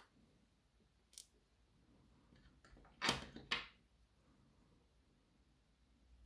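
Small hard clicks and knocks from handling a disassembled lock core and small steel tools on a wooden tabletop: a light click about a second in, then a louder clatter of two or three knocks around the middle.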